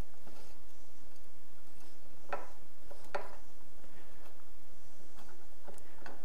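Small metallic clicks as a screw is handled and fitted into a hole in a black metal mounting bracket on a pin-fin heatsink. Two clearer clicks come about two and three seconds in, with a few fainter ticks near the end.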